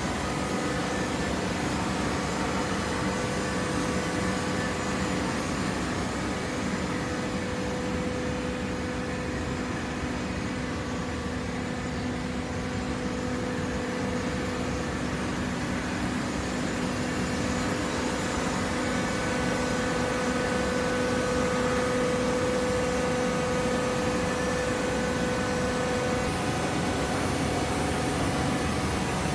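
Hydraulic baling press's electric motor and hydraulic pump running: a steady mechanical hum with a few held whining tones, slightly louder in the second half.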